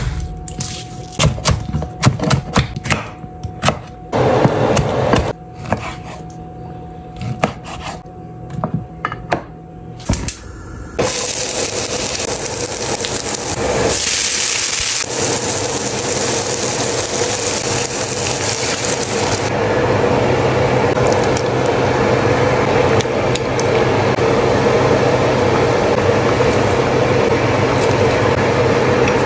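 A chef's knife chopping on a wooden cutting board in quick, uneven knocks, then, about eleven seconds in, a steady loud sizzle of chopped onion, garlic and tomato frying in oil in a pan. Later the sound turns to the steadier noise of the soup cooking in the pan.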